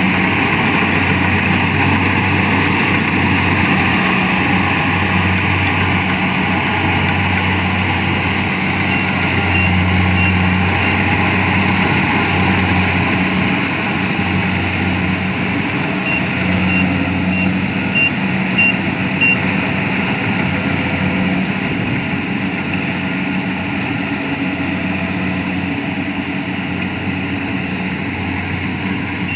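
Engine of a rice harvesting machine running steadily under load, with a dense mechanical whir over its low drone.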